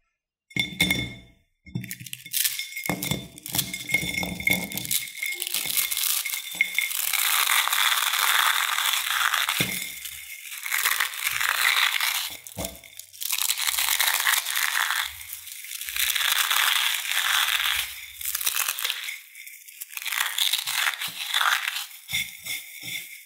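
Dry instant noodles crunching and crackling as they are crushed and crumbled by hand in a ceramic bowl, in repeated waves of a second or two each. A few sharp knocks and clicks come in the first few seconds.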